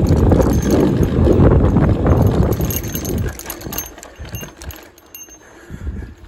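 Mountain bike rolling fast down a dirt trail: wind rumble on the microphone mixed with the rattle and clicking of the bike and tyres over the bumps. It is loud for about the first three seconds, then quieter as the ride eases.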